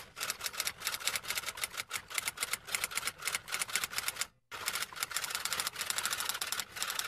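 Typewriter keystroke sound effect: a fast run of sharp key clicks, about eight a second, with a short break a little over four seconds in, while text types itself out.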